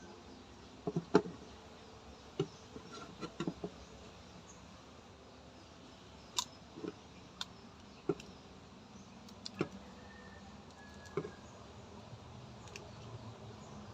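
Electrical wires being handled and twisted together into a splice: scattered light clicks and taps, about a dozen, the loudest about a second in, over faint steady background noise.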